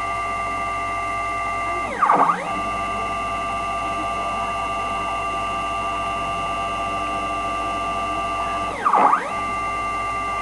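Stepper motor driving a home-built CNC machine's Y axis on a rolled lead screw at 3500 mm/min. It makes a steady whine of several tones that sweeps down and back up, briefly louder, about two seconds in and again near the end, as the axis slows, reverses at the end of its travel and speeds up again. This is where the slightly bent screw binds: it runs freely in the middle of its travel and drags at the ends.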